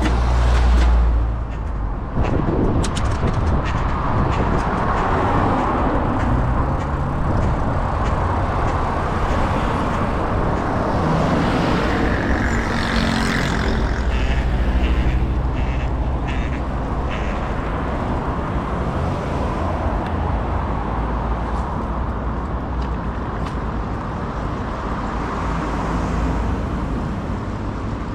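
City street traffic: cars and trucks passing close by, heard from a moving bicycle, with a steady low rumble and a stretch of brighter hiss about halfway through.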